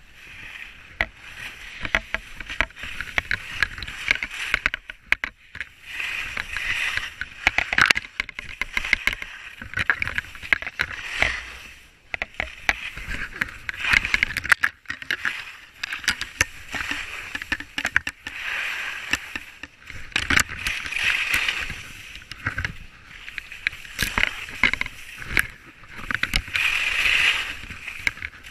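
Skis carving down a snow slope: a scraping hiss that swells with each turn every two to three seconds, with many sharp clicks and knocks mixed in.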